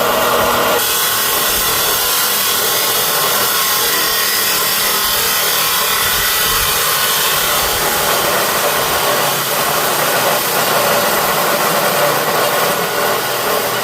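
Angle grinder cutting steadily, throwing sparks, running at full speed throughout.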